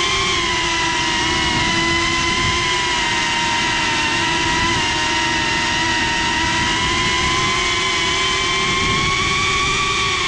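FPV quadcopter's electric motors and propellers whining steadily as it flies, heard from the camera mounted on the craft, the pitch wavering slightly as the throttle shifts.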